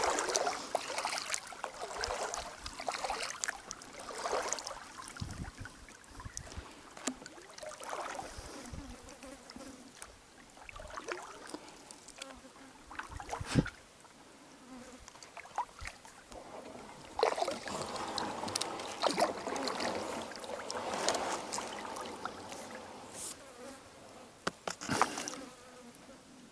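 Kayak paddling: the paddle blades swish through the water in irregular strokes, with a few sharp knocks of the paddle against the plastic hull, and insects buzzing around the microphone at times.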